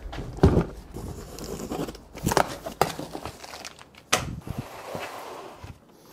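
A cardboard box set down on a table with a thump about half a second in, then handled and unpacked: its flaps opened and packing pulled out, with cardboard rustling and a few sharp knocks.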